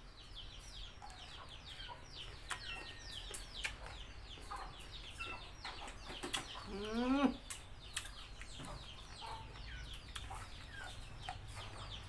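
Chicks peeping steadily in many short, high, falling chirps, with hens clucking among them. One louder rising call comes about seven seconds in, over scattered soft clicks of chewing.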